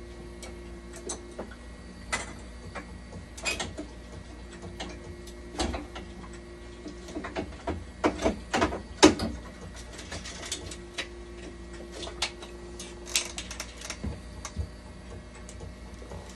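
Irregular clicks, clinks and knocks of hand work on the internal parts and fittings of a dialysis machine, busiest and loudest about eight to nine seconds in. Under them a faint low steady tone stops and starts.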